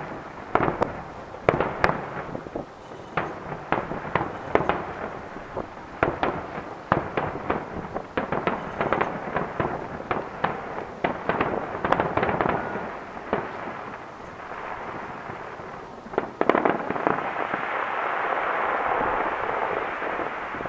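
Fireworks display: aerial shells bursting in a rapid, dense series of sharp bangs, some with an echoing tail. About 17 seconds in, the separate bangs give way to a steady rushing noise.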